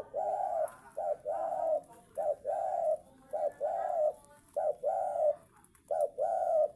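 Spotted dove cooing over and over: about six phrases, each a short coo followed by a longer one, repeated a little more than once a second.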